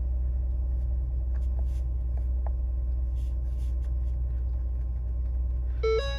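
Ford Taurus engine idling, heard from inside the cabin as a steady low rumble. Near the end the instrument cluster's warning chime starts, a repeating two-note tone, as a Check Charging System warning comes up.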